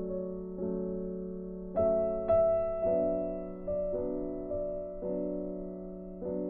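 Background music: slow piano, a new chord struck about once a second and left to ring.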